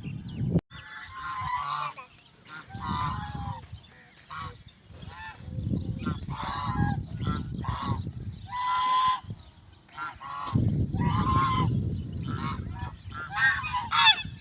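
Farm birds honking: many short calls in quick succession, over a low rumbling noise that comes and goes.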